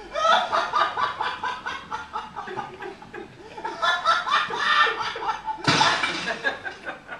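Several people laughing in pulses of chuckles and snickers, with a short sharp slap or thump about five and a half seconds in.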